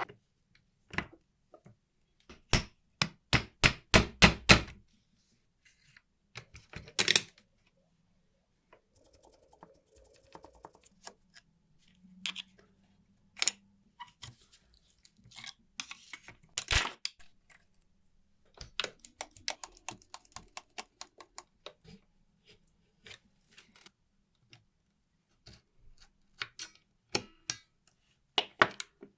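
Sharp metallic clicks and knocks from handling the parts of an old mechanical calculator, with a quick run of about eight knocks a few seconds in and scattered single clicks after.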